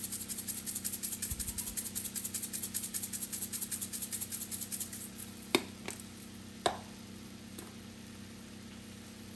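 Spice shaker of ground cayenne pepper shaken rapidly and evenly, the powder and shaker rattling, for about five seconds; then two sharp knocks about a second apart.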